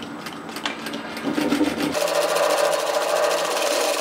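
Industrial lockstitch sewing machine stitching a bag-out seam through two layers of fabric. It starts about halfway in, runs at a steady speed with a fast, even needle rhythm, and stops near the end.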